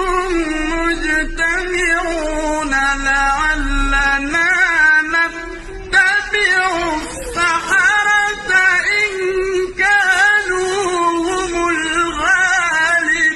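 A solo voice reciting the Qur'an in melodic tajweed style. It draws out long ornamented notes that glide up and down, with short pauses for breath between phrases.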